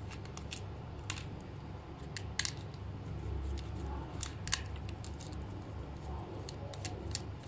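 Small screwdriver and fingers working on the plastic body of a mechanical praying-mantis toy as its screws are taken out: scattered sharp clicks and light plastic taps over a low steady hum.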